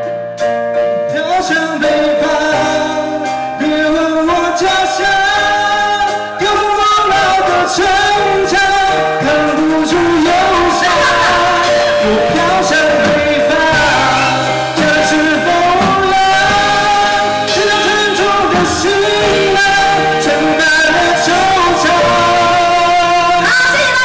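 A live pop band with drums, bass guitar and keyboards playing a song while a man sings into a microphone.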